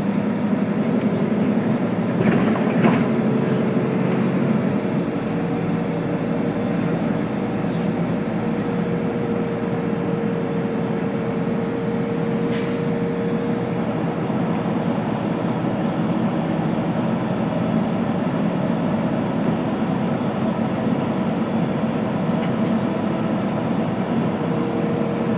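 Bus driving, heard from inside the passenger cabin: steady engine and road noise with a steady whine, and a brief hiss about halfway through.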